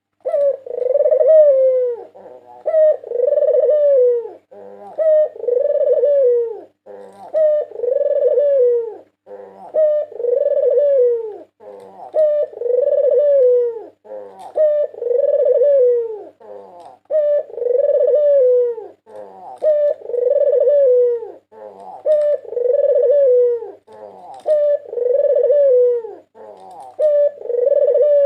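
White Barbary dove (puter putih) cooing in a steady rhythm: each call is a brief note followed by a longer coo that falls in pitch, repeated about every two and a half seconds.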